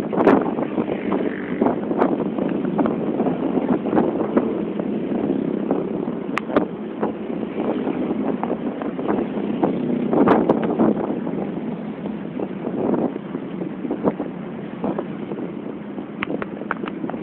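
Steady engine and road noise of a moving vehicle, with many small clicks and knocks scattered through it.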